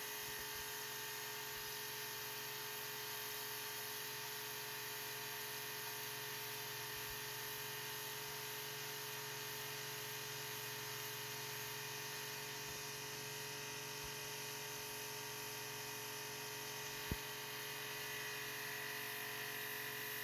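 Pressure washer running steadily: its motor hums while the water jet hisses against a concrete wall, stripping off green moss. A single brief click about 17 seconds in.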